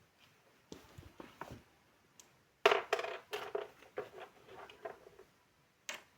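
Small hard items, such as cosmetic jars and bottles, being handled and set down: a few separate knocks, then a louder clattering run of ringing clinks for a couple of seconds, and a last click near the end.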